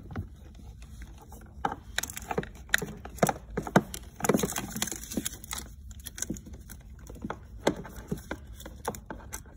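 Irregular plastic clicks and knocks with some rustling, as wire-harness connectors and wires are handled and pulled about over a battery in a kids' ride-on toy jeep's plastic battery compartment. The handling is busiest about four to five seconds in.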